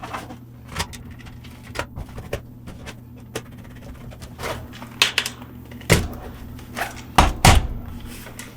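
Irregular clicks and knocks of the charger's plastic case and parts being handled and fitted together, the loudest knocks about five, six and seven seconds in, over a faint steady low hum.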